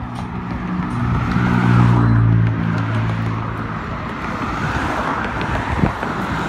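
Cars driving past on the road, an engine hum swelling to its loudest about two seconds in as one goes by, over steady traffic and tyre noise.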